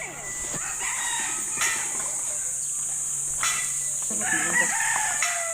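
A rooster crows once, about four seconds in, with a long call that falls in pitch at the end. Behind it runs a steady high buzz of insects, likely crickets, with a few faint clicks.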